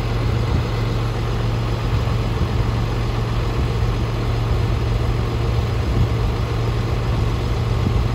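John Deere 8320R tractor's diesel engine idling, a steady low hum.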